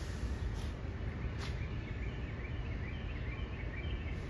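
Steady low rumble around a standing SEPTA Broad Street Line B-IV subway train, with two short bursts of air hiss from its brakes in the first second and a half, then birds chirping.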